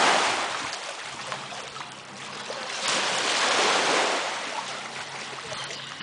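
Waves of water washing onto a sandy shore: the rush swells and falls back twice, loud at the start and again about three seconds in.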